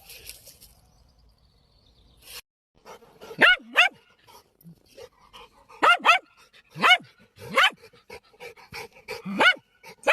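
A dog barking, about seven short, sharp barks in pairs and singles, with fainter short sounds between them.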